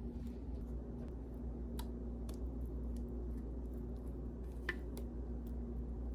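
Electric mixer running at a steady speed, a low motor hum with a steady tone, and a few sharp clicks, likely the beaters tapping the bowl.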